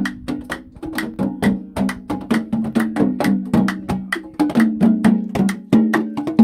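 Music: quick, sharp percussion strokes several times a second over sustained low pitched notes.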